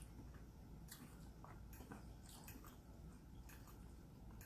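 Faint chewing close to the microphone: scattered soft wet mouth clicks and smacks of someone eating.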